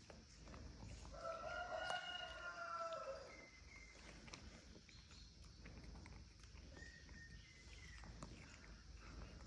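A single drawn-out animal call of about two seconds, starting a second in, followed by a few faint short chirps and small clicks.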